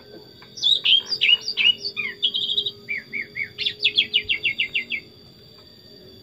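Sooty-headed bulbul (kutilang) singing: a string of quick downslurred whistled notes, then a rapid run of about ten short clipped notes, stopping about five seconds in.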